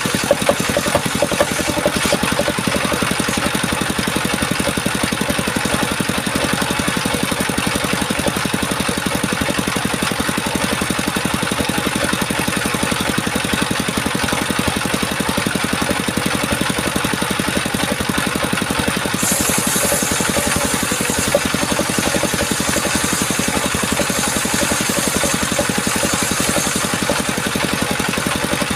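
Small petrol engine of a wood-cutting saw running steadily at an even speed, with a high hiss added from about two-thirds of the way in.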